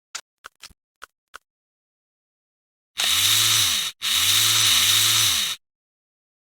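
A few light clicks of metal rifle parts being handled, then a small power tool's motor spun up and let down three times in short pulses, its pitch rising and falling with each squeeze of the trigger.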